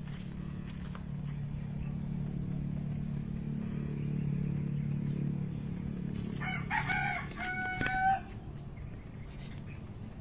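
A rooster crows once, about six seconds in, for about two seconds. A steady low hum runs underneath.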